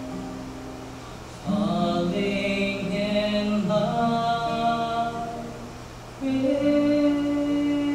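A solo male voice singing long held notes over an acoustic guitar, in two sustained phrases, one starting about a second and a half in and another about six seconds in.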